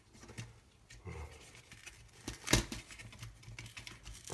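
Small clicks and taps of laptop parts and cables being handled during disassembly, with one sharper knock about two and a half seconds in.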